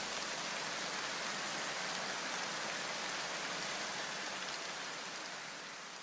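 A steady white-noise hiss, like rain, between stretches of background music; it fades out near the end.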